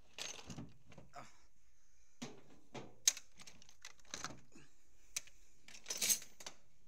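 Metal tools and sockets clinking and rattling in the drawers of a Craftsman tool box as the drawers are handled, with sharp clicks about three and five seconds in and a cluster of knocks near the end.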